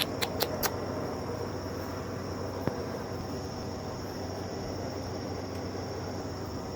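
Steady insect chorus, a constant high-pitched hum of chirring insects, with a quick run of sharp clicks in the first second and one more click about two and a half seconds in.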